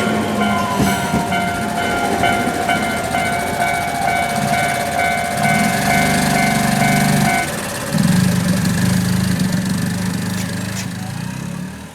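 A Japanese level-crossing warning bell rings over and over in its kan-kan pattern while a train passes over the crossing, wheels and running gear rumbling on the rails. The bell cuts off about seven seconds in, and the train noise goes on.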